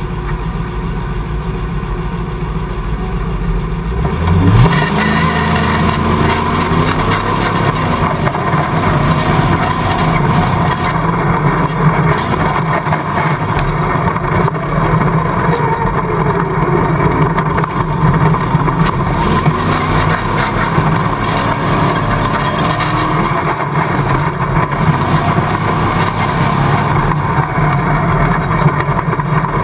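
Stroked LS V8 of a rear-engined tube-chassis rock bouncer, heard from inside its cage, running hard under acceleration. It revs up sharply about four seconds in, then holds at high revs, rising and falling as the buggy drives the track.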